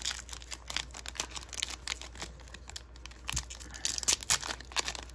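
Foil wrapper of an Upper Deck Synergy hockey card pack crinkling and tearing as it is peeled open by hand, a quick run of small crackles and short rips.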